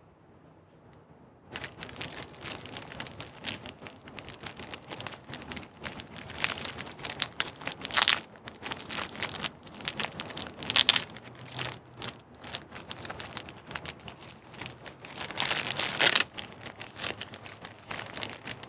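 Clear plastic packaging crinkling and crackling as it is handled and pulled at, starting about a second and a half in, with sharper, louder crackles near eight, eleven and sixteen seconds in.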